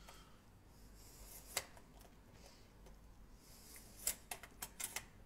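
Plastic key card pushed into and pulled out of a hotel door's electronic card lock: one sharp click about a second and a half in, then a quick run of clicks and scrapes near the end. The lock is not opening for the card.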